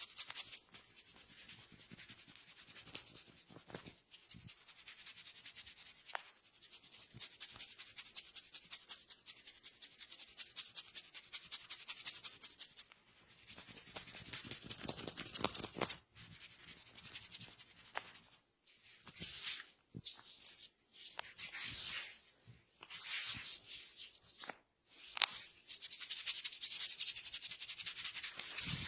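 Hands rubbing briskly over a person's hair and scalp during a head massage: a dry hiss in quick rhythmic strokes, broken by short pauses in the second half.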